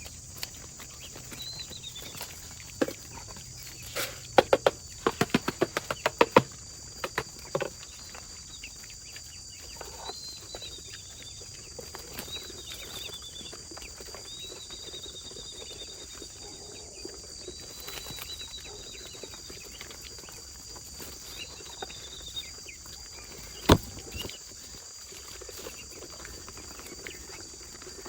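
Rural outdoor ambience: a steady high insect drone, with repeated drawn-out high bird calls. A quick run of sharp taps comes about four to six seconds in, and a single sharp knock near the end.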